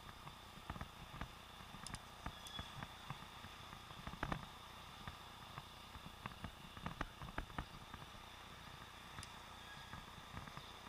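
Faint, muffled sound picked up inside a sealed waterproof camera housing on a cycling helmet. Irregular knocks and ticks come from the housing and mount jostling as the bike rides over the street, the loudest about four seconds in, over a steady thin high tone.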